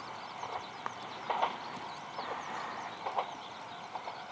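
Birds chirping and calling: many small high chirps with short, irregular louder calls every half second to second, over faint background hiss.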